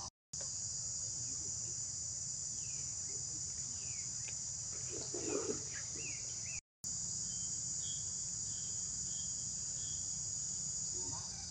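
Steady high-pitched insect chorus, with a low rumble beneath it. About five seconds in there is one brief louder sound, among a few faint short chirps, and the audio cuts out completely for a moment twice.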